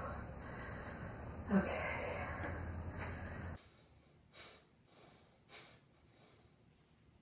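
Low room hum and movement noise with one short vocal grunt about a second and a half in. After a sudden drop to a quieter room, a person breathes in a few short, effortful exhales about a second apart while holding a handstand against the wall.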